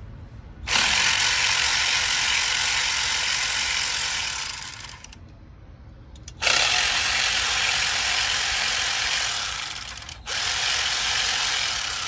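Ratchet wrench clicking rapidly as it backs out the fuel rail mounting bolts, in three long runs: about four seconds, then after a short pause about four more, then about two.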